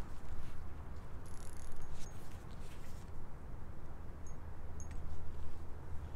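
Wind rumbling on the microphone, with a few faint high clicks and short chirps scattered through.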